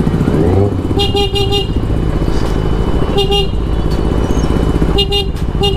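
Sport motorcycle engine running underneath, with a vehicle horn tooting in quick clusters of short beeps: one run about a second in, another near three seconds, and two more near the end.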